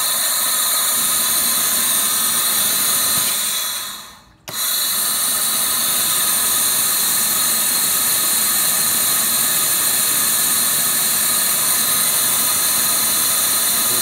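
Shop compressed air hissing steadily as it is fed through a hose into cylinder number 2 of a Toyota RAV4's 2.0 1AZ-FE engine. It breaks off briefly about four seconds in and then resumes. The air is leaking past a blown head gasket into the cooling system and blowing coolant out of the radiator.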